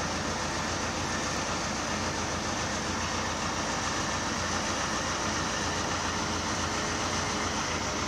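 Road-sweeper tractor standing with its engine running, a steady chugging drone under an even hiss that does not change.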